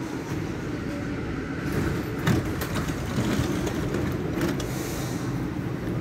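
Series 4000 metro train standing at a station platform: a steady low hum from the train, with a few sharp clicks and a knock about two seconds in.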